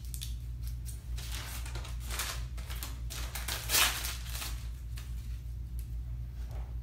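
Paper-and-plastic sterile blade pouch crinkling and tearing as it is peeled open for dermaplaning, in several rustling strokes, the loudest about four seconds in, over a steady low hum.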